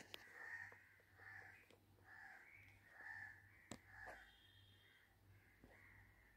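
Faint bird calls, short calls repeated about twice a second that thin out after about four seconds, with two sharp clicks, one just after the start and one near the middle.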